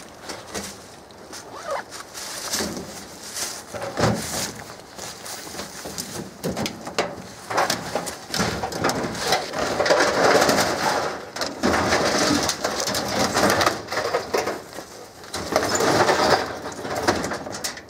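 A white sheet-metal appliance being heaved and slid into a pickup bed already piled with scrap metal: a run of clanks, knocks and scrapes, loudest in the second half. Chickens cluck nearby.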